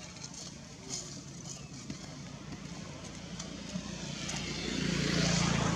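A motor vehicle's engine running as it passes, a low hum that swells to its loudest near the end.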